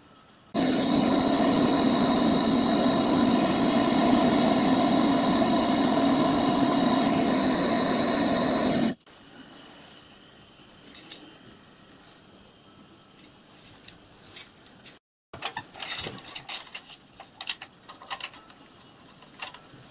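A loud, steady mechanical running sound with several fixed pitches starts about half a second in and cuts off abruptly about nine seconds in. Faint clicks and taps follow as a bent copper pipe is handled and fitted into a small locomotive cab.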